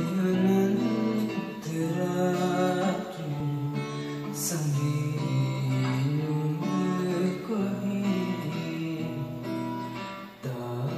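Yamaha steel-string acoustic guitar strummed and picked, with a male voice singing along in Sinhala.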